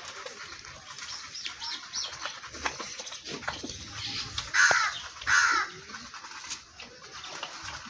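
Calves suckling at a cow's udder, with scattered short sucking clicks. About halfway through a bird gives two loud, harsh calls a little over half a second apart, after a few faint high chirps.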